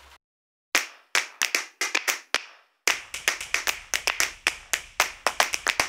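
Percussive music: sharp clap-like strikes, a few scattered ones at first, then from about three seconds in a steady quick beat of about four strikes a second.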